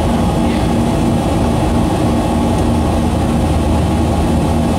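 Cabin noise of a Boeing 737-500 climbing after takeoff: its CFM56-3 turbofan engines make a steady, loud drone with a low hum, heard from inside the cabin over the wing.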